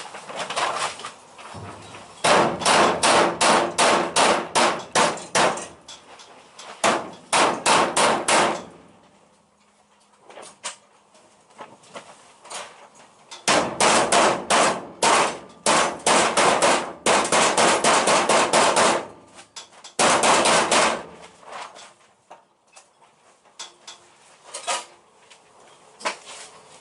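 Hammer blows on steel car body panels, panel beating against a dolly to bring the metal edges together. The blows come in four quick runs of about four a second, with short pauses between the runs.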